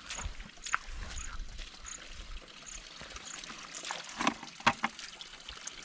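Shallow running water trickling over rocks, with two short sharp knocks or splashes a little after the four-second mark.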